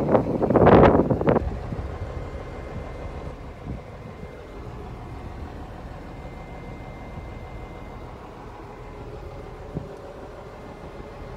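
Loud, irregular buffeting on the microphone for the first second or so, then a steady low rumble with a faint thin tone above it, and one small knock near the end.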